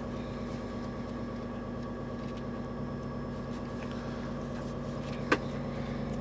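Steady machinery hum inside a tool truck, with one sharp click about five seconds in.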